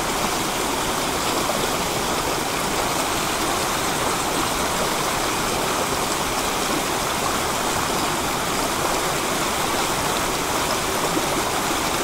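Mountain stream rushing steadily over rocks below a small waterfall, a constant even wash of water sound.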